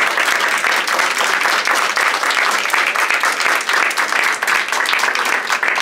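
Audience applauding: many people clapping in steady, dense applause.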